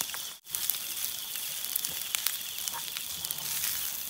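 Fried rice sizzling in a small cast-iron skillet over a wood fire, with many small scattered crackles as it is stirred with a wooden spatula. The sound drops out for a moment about half a second in.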